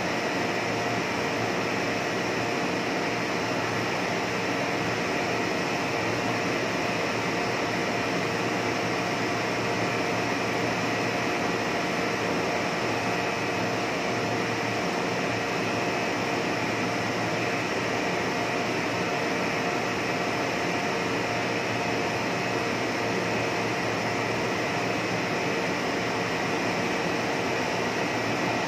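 Steady drone of plastic-film extrusion machinery running, with a few constant humming tones over an even hiss and no change throughout.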